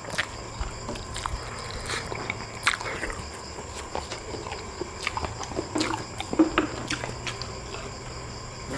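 Close-miked eating sounds: chewing and sucking on spicy chicken feet, with irregular small wet clicks and crunches.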